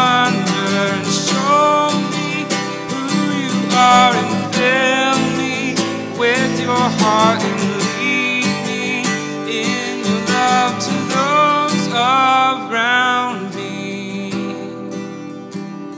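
Contemporary worship band music, growing softer near the end.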